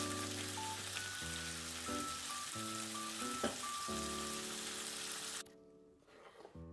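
Sliced beef sizzling as it stir-fries in a pan, under background music; the sizzling cuts off suddenly about five seconds in.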